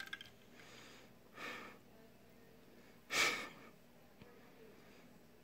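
Two breathy exhales close to the microphone: a short one about a second and a half in, and a louder, longer sigh-like one about three seconds in.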